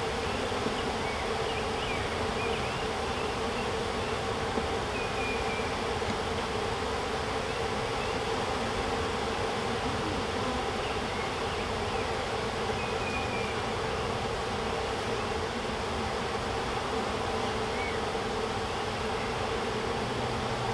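Steady buzzing hum of a mass of honeybees around an open hive, just after a three-pound package colony has been shaken in and the bees are in the air.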